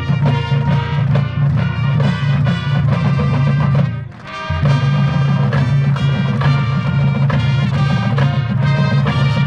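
Upbeat music with a steady, quick beat, dipping briefly about four seconds in before carrying on.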